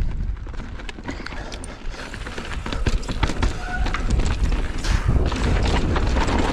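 Mountain bike riding over a wet, rocky dirt trail: wind rumbling on the microphone, with tyre noise and a steady run of rattling clicks and knocks from the bike over bumps. It gets louder about three seconds in as speed builds.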